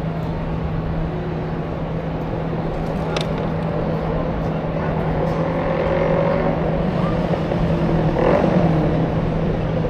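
Busy city street ambience: steady traffic noise under a constant low hum, with faint voices of passers-by. It grows a little louder near the end.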